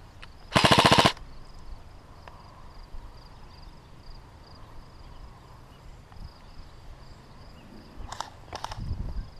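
Airsoft electric gun firing a rapid full-auto burst of about half a second, loud and close. Near the end, two shorter, fainter bursts follow.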